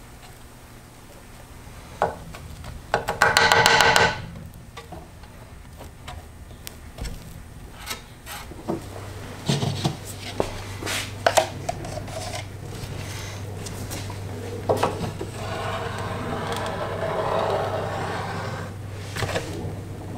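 Wooden stick scraping and smoothing epoxy fillets along the fin joints of a fibreglass rocket fin can, with scattered knocks and a brief squeaky chatter about three seconds in, the loudest moment. Light knocks of a plastic cup being picked up and handled, and a low steady hum that comes in about nine seconds in.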